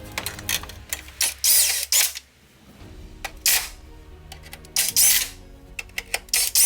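Ratchet wrench working the bolts of a car's drive shaft in several short bursts of rapid ratcheting, over background music.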